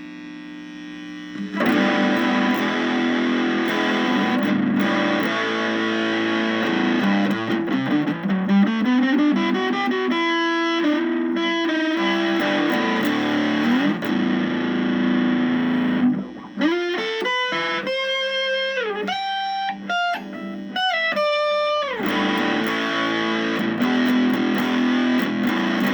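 Electric guitar played through a breadboarded two-transistor Muff Fuzz circuit with BAT41 clipping diodes, giving a fuzzy, distorted tone. Chords come in about a second and a half in, with a slide up the neck, then a run of single notes with string bends in the middle, then chords again.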